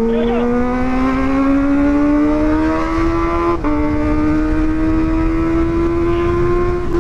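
Kawasaki ZX-25RR's 250 cc inline-four with a Pro Liner aftermarket exhaust, accelerating hard: the engine note climbs steadily, drops sharply at an upshift about three and a half seconds in, then climbs again more slowly.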